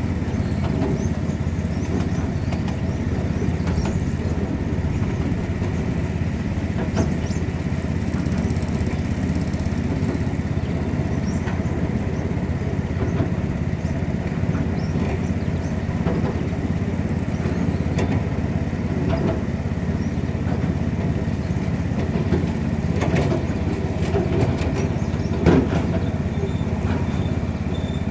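Miniature ride-on railway train running along its track: a steady rumble from the yellow locomotive and wagons, with occasional sharp clicks and knocks, more of them in the later part.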